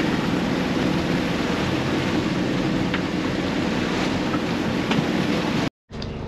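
Wind and rushing water around a sailboat under way, with the auxiliary engine running steadily underneath while motor sailing; it cuts off suddenly near the end.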